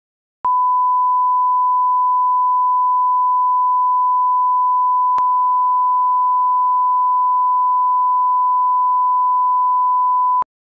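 Steady 1 kHz line-up test tone, the reference tone that accompanies broadcast colour bars for setting audio levels. It starts about half a second in, has a faint click about halfway through, and cuts off just before the end.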